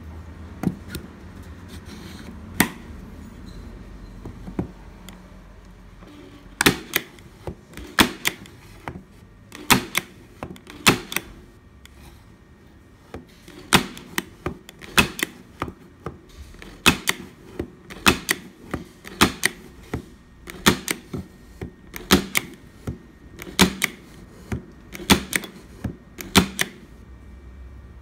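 APLUS HW3/16 hand-squeezed framer point driver firing framer points into wood, each shot a sharp snapping double click. A few scattered shots at first, then a steady run of shots about one every second and a quarter from about six seconds in until shortly before the end.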